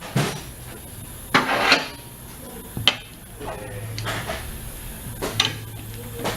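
Metal clanks and knocks of tools and a tire changer working on a large run-flat wheel, one sharp click among several short bursts, over a low machine hum that comes and goes.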